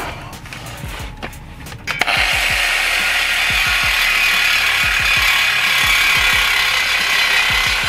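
Corded reciprocating saw with a metal-cutting blade, starting about two seconds in after a few handling clicks and then cutting steadily into a steel exhaust pipe with a loud, even rasp.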